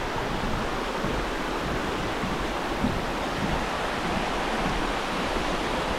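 Fast-flowing creek water rushing, a steady unbroken noise.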